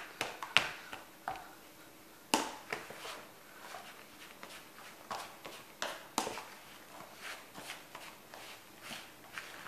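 Metal fork scraping and knocking against a plastic tub while mashing and stirring a crumbly cornmeal dough: irregular clicks and short scrapes, the sharpest about two and a half and six seconds in.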